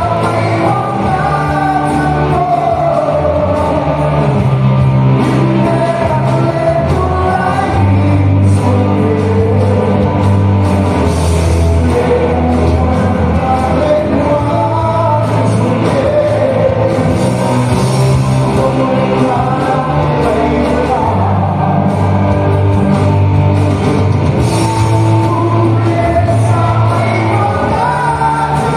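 A man singing into a handheld microphone over a rock-style music accompaniment, amplified through loudspeakers.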